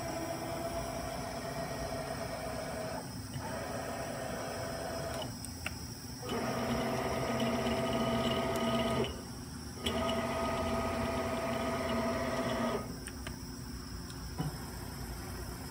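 The axis servo drives of a Bridgeport EZ-Trak DX II CNC mill whine steadily as the table is jogged in four separate moves, each starting and stopping sharply. The last two moves are louder and longer, and a small click follows near the end.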